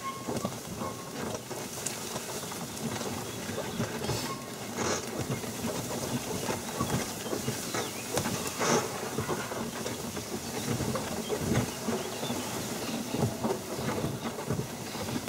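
Small vehicle driving slowly over rough ground: a steady rumble and hiss with frequent irregular rattles and knocks as it bumps along.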